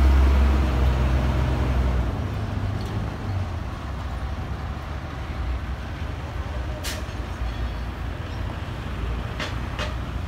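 A large vehicle engine running steadily, loud for the first two seconds and then easing to a lower rumble. A few sharp clicks come about two-thirds of the way through and twice near the end.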